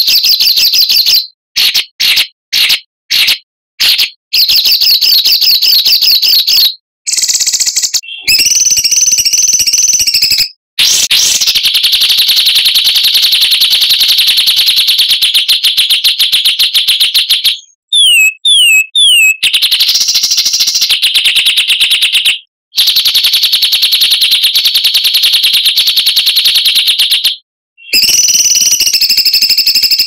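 Loud songbird song from a masteran training compilation: rapid, dense high trills and chirps in stretches of a few seconds, spliced together with abrupt silent breaks. Around eighteen seconds in there is a quick run of short descending whistled notes.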